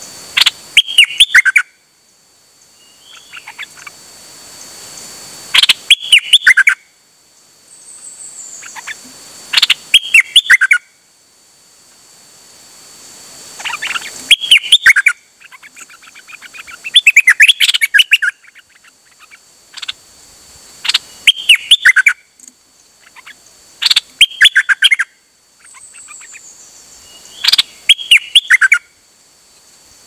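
A caged songbird, the Thai 'nok dok taeng', sings loud short phrases of quick, jumping whistles and chirps, repeated about every three to four seconds. A fainter high, falling call from another bird comes a couple of times between the phrases.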